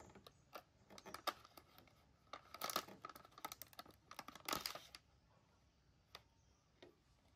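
A thin clear plastic candy box crackling and clicking as it is handled by hand and its lid pried open, in short runs of crackles through the first five seconds, loudest in two bursts near the middle.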